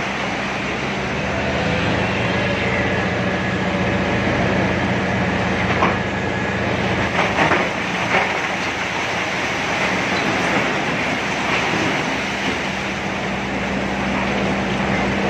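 Diesel engine of a large rigid mining dump truck running steadily under load as its raised bed tips a load of rock into a hopper, with the rumble and clatter of the rock sliding and tumbling down. A few sharp knocks of falling rock stand out about six to eight seconds in.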